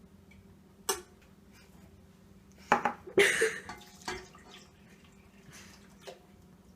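Milk being poured into a bowl with a short splash, among knocks and clinks of containers, as the three milks are combined for a tres leches soak.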